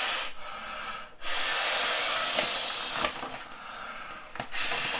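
Trekology Aluft inflatable camping pillow being blown up by mouth: long breaths rush into its valve as a steady hiss, broken by a short pause to inhale about a second in and another near the end. A few light crinkles come from the pillow fabric in his hands.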